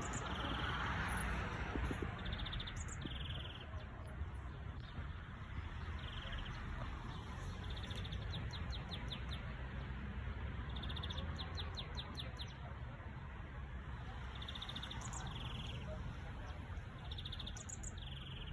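A small songbird singing repeatedly, in short phrases every few seconds: brief high notes, often in pairs, and fast rattling trills, over a steady low background rumble.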